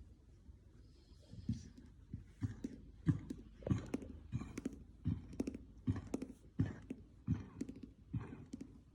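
Repeated short coughs in quick hacks, one every half second to a second, starting about a second and a half in.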